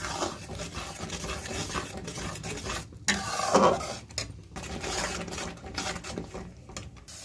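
A metal spoon scraping and knocking against a metal kadai as a thick masala paste is stirred and fried, with a faint sizzle. The paste is being fried until the oil separates from it.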